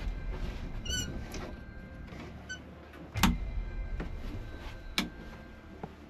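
Handling noises from the wooden cabin joinery of a sailboat: a short squeak about a second in, then two sharp knocks, the louder about three seconds in and another near five seconds.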